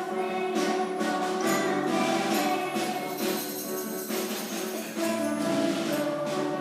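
Children's choir singing a Christmas carol in Spanish with piano accompaniment. Jingling percussion is shaken in rhythm over it.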